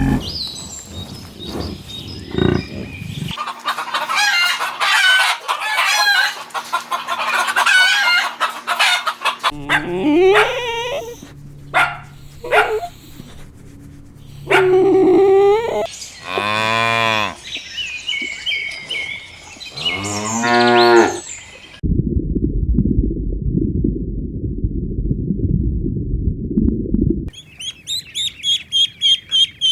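A run of farm-animal calls cut one after another: chickens and other fowl clucking and chirping, then cows mooing in two long calls. Later comes a stretch of low rumbling noise, and near the end a rapid, even series of high chirps, about two or three a second.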